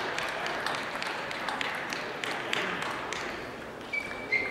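Spectators clapping after a table tennis point, the applause thinning out over about three seconds; near the end, a couple of short high pings.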